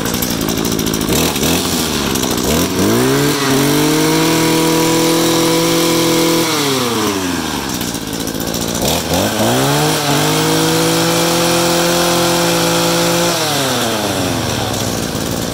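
Shindaiwa RA3021 brush cutter's 21cc two-stroke engine running just after starting, idling and then revved twice. Each time it rises in pitch, holds high for about three to four seconds and drops back to idle.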